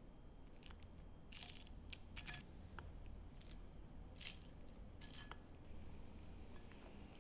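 A metal spoon scraping and pressing over a crisp shredded-potato crust on a ceramic plate, giving about four short, faint crunchy scrapes with a few small clicks between.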